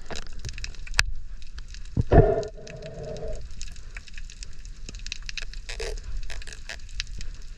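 Underwater reef soundscape: a dense, steady crackle of scattered clicks, typical of snapping shrimp on a coral reef. About two seconds in comes one loud burst that carries a low hum for about a second.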